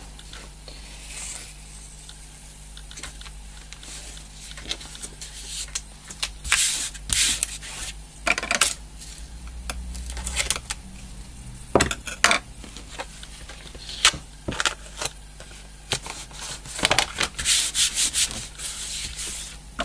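Hands rubbing strips of brown paper tape down onto a cardboard sheet: irregular dry rubbing strokes coming in bunches, with quieter stretches between.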